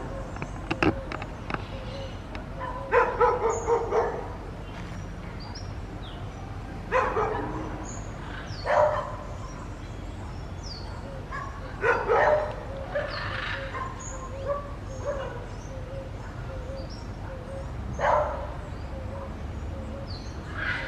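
Dogs barking now and then, a short run of barks followed by single barks every few seconds.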